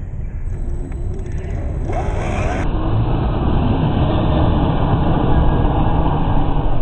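Electric motor and drivetrain of a 1/10-scale MST CFX RC crawler running as its tyres spin and dig in loose sand, played back slowed to half speed so it sounds deep and low. It grows steadily louder as the wheels dig in.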